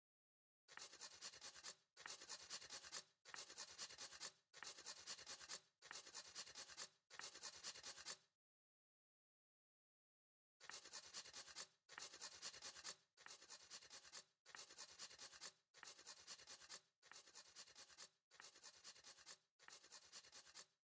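A dry scratching, rubbing sound repeated in even bursts of just over a second each: six in a row, a pause of about two seconds, then eight more.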